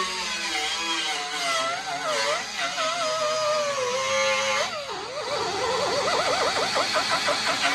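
Air die grinder with a Scotch-Brite-style disc whining as it scours the bare steel edge of a rust-repair cut-out in a car door. Its pitch sags and wavers as the disc is pressed into the metal, dips sharply about five seconds in, then warbles rapidly.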